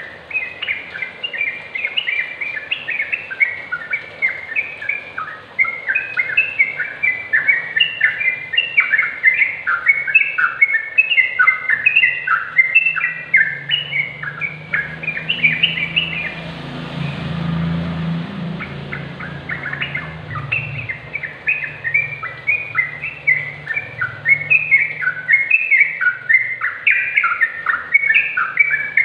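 Yellow-vented bulbul (trucukan) singing a long run of quick, bubbly chattering phrases. The song breaks for a few seconds past the middle while a low rumble rises in the background, then resumes.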